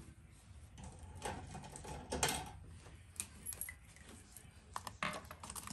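Faint scattered clicks and light knocks, someone fetching a marker, over a low steady hum.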